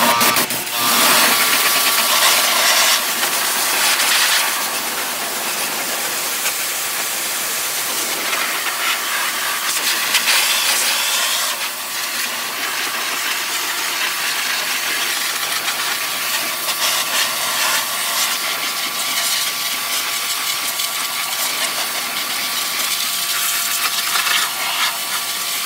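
Pressure washer jet spraying water over a car's engine bay, a loud steady hiss that starts about a second in, with the car's engine idling underneath.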